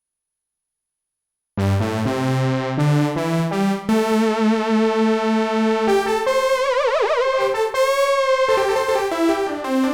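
Sequential Prophet-6 analogue polyphonic synthesizer playing a factory preset: after about a second and a half of silence, a bright patch plays held notes and chords, with a note whose pitch wavers quickly past the middle.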